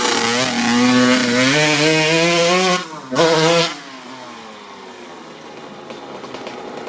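1997 Kawasaki KX80 80cc two-stroke dirt bike engine through a Dep S2 silencer, held at revs with a wavering, slightly rising pitch. About three seconds in it drops off, gets one short sharp blip of the throttle, then falls back to a steady idle.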